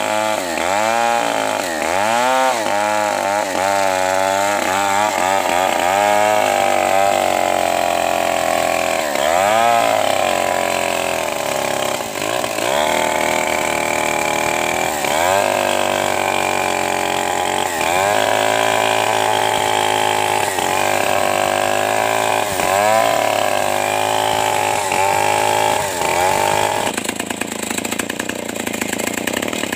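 Stihl 070 two-stroke chainsaw ripping a trembesi (rain tree) log lengthwise, held at full throttle. The engine's pitch dips again and again as the chain bogs under load and then recovers, with steadier stretches between. The sound changes abruptly a few seconds before the end.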